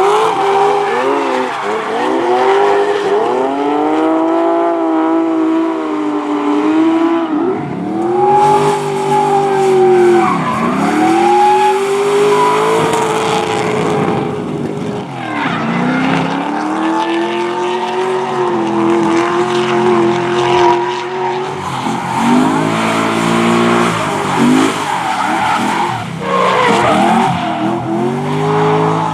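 Drift car engine revving hard, its pitch rising and falling over and over as the throttle is worked through the drift, with tyres squealing and skidding.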